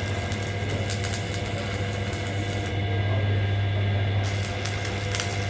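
Workshop machinery running with a steady low hum and scattered crackling clicks; the crackling stops for about a second and a half midway, then resumes.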